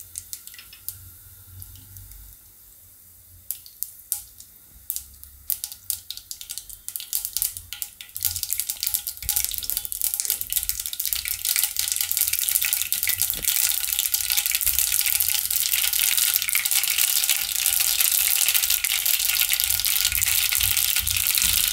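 Mustard seeds popping in hot oil for a tempering: scattered single pops at first, then from about eight seconds in a dense, steady crackling sizzle as the seeds splutter fully.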